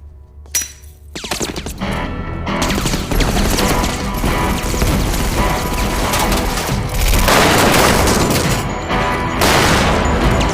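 Film gunfight sound effects: a single sharp gunshot about half a second in, then dense, sustained rapid gunfire, with a film score underneath.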